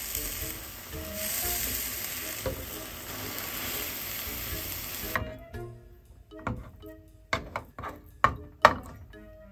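Beaten egg sizzling in a hot rectangular tamagoyaki pan as the omelette is rolled, cutting off suddenly about five seconds in. Several sharp clicks and knocks follow, under soft background music.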